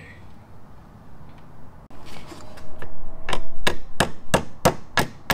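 A hand tool working on the parts of a pneumatic wiper motor. After some faint scraping, about three seconds in it starts a run of about eight sharp knocks, evenly spaced at roughly three a second.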